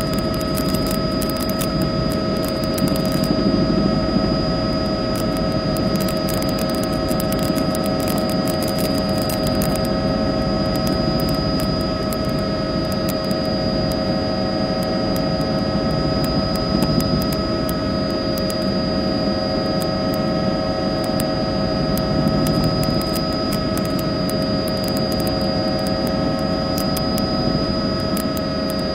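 Steady aircraft engine noise heard from on board: a constant drone with several unchanging whine tones above it and scattered faint crackles.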